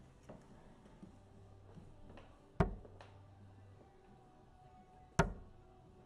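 Two steel-tip darts striking a Winmau Blade 6 bristle dartboard, each a single sharp thud, about two and a half seconds apart.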